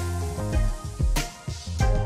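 Background instrumental music with a drum beat.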